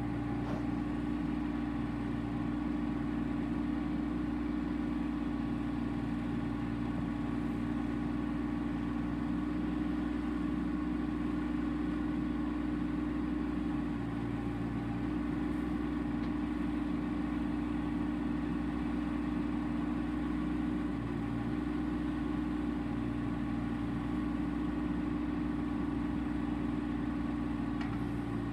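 Bobcat 418 mini excavator's diesel engine running steadily as the boom and bucket are worked, with a lower note coming and going every few seconds.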